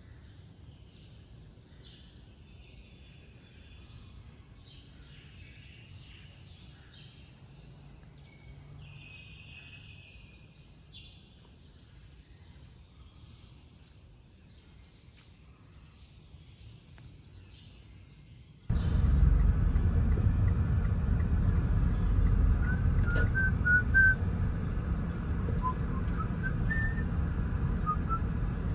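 Small birds chirping faintly and intermittently over quiet surroundings. About two-thirds of the way through it cuts suddenly to the loud, steady low rumble of a car driving on the road.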